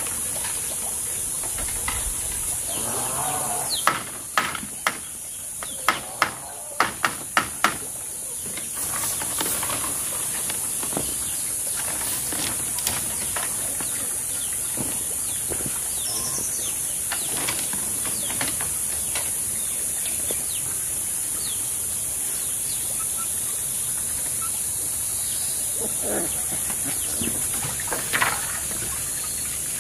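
Bamboo poles knocking against each other as they are handled, a quick run of about eight sharp knocks about four seconds in and a few more near the end, over a steady high-pitched hiss.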